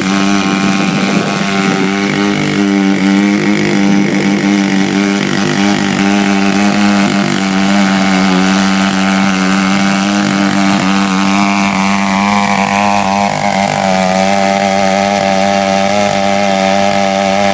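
Large two-stroke Stihl chainsaw running steadily at high revs, as when ripping a log on a chainsaw mill. About two-thirds of the way through, a fainter higher tone slides downward.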